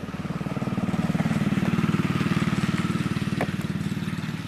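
A small engine running with a fast, even beat, growing louder toward the middle and easing off again.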